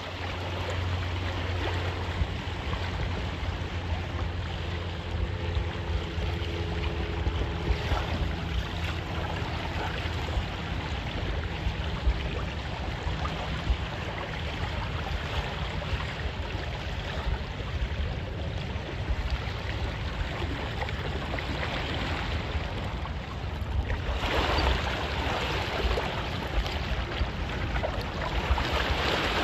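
Wind rumbling on the microphone with choppy water splashing and slapping against a small boat's hull. The splashing grows louder about 24 seconds in.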